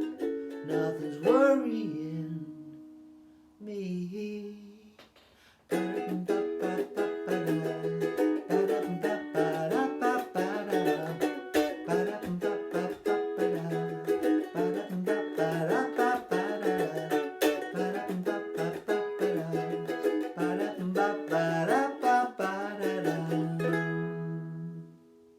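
Ukulele, tuned down a half step, strummed in a steady rhythm. The first chords die away to a brief pause, the strumming picks up again, and it ends on a final chord left to ring out.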